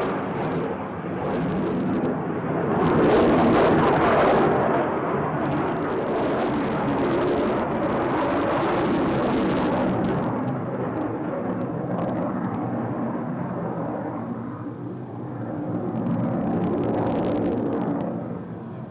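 Jet fighter engine noise, a broad rushing sound that swells about three seconds in and again near the end, with its hiss changing abruptly in places, then fading at the close.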